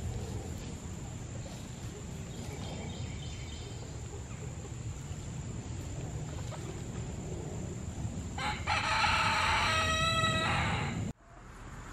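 A rooster crows once near the end, a single long stepped call of about two and a half seconds that cuts off abruptly.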